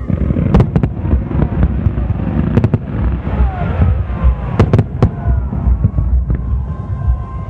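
Fireworks display: aerial shells bursting with sharp bangs, one about half a second in, one near two and a half seconds, and a quick cluster of three near five seconds, over a continuous low rumble and crackle.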